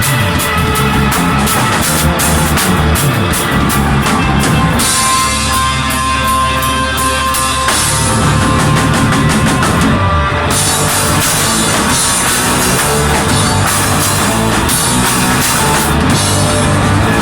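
A rock band playing an instrumental passage on drum kit and electric guitar. About five seconds in, the drums drop back to held, ringing notes for a few seconds, then the full band comes back in.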